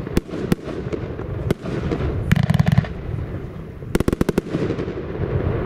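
Blackboxx "Fallout" firework battery firing: scattered sharp bangs of shots launching and bursting, with two quick rattling volleys of cracks, one about two and a half seconds in and one about four seconds in.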